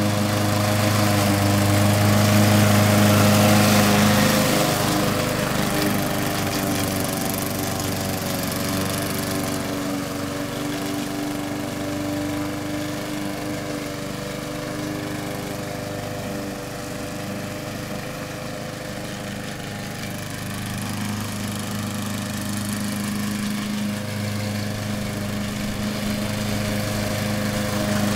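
A home-built radio-controlled robot's motor running steadily as a droning hum. It is loudest for the first few seconds, fades as the robot drives off across the lawn, and grows louder again near the end as it comes back close.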